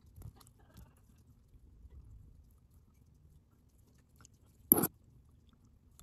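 Small hand-work sounds of fly tying at the vise while dubbing is applied to the thread: faint clicks and rustles, with one brief loud rasp about three-quarters of the way through.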